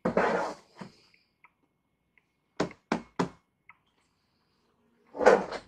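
Hands handling a cardboard box of building blocks on a tabletop: a knock at the start, three quick taps about two and a half seconds in, and a louder knock near the end.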